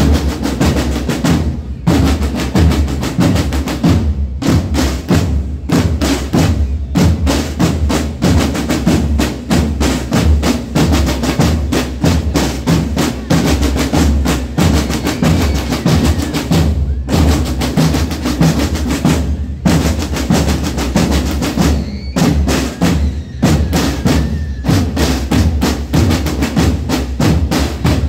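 Scout drum corps marching and playing snare drums and red marching drums together in a fast, dense rhythm, with brief rests between phrases.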